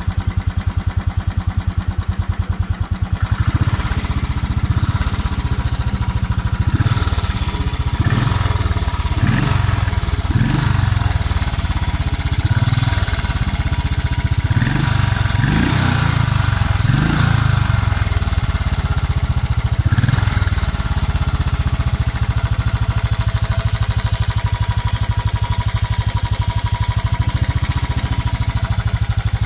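Royal Enfield Bullet 500 EFI's single-cylinder engine on its stock exhaust, running at idle and then revved in a series of short throttle blips. It settles back to an even idle about two-thirds of the way through.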